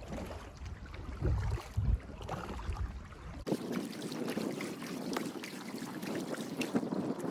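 Kayak paddle strokes in canal water: in the first half low rumbles of wind on the microphone sit under the water, then after an abrupt cut about three and a half seconds in, a steady run of small splashes and drips.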